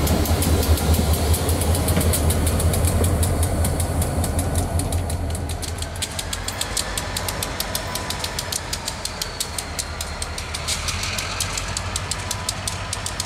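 Norfolk Southern EMD GP38-2 diesel locomotive rumbling past at close range, the engine sound fading after about five seconds. From then on, a rapid, even ringing of a grade-crossing bell while another diesel locomotive approaches at a distance.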